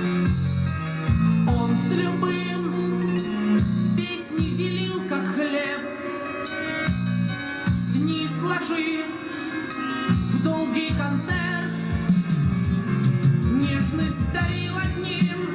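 Rock music with guitar and a bass line, played through a Yamaha CA-810 stereo amplifier and Klipsch Chorus II loudspeakers and heard in the room.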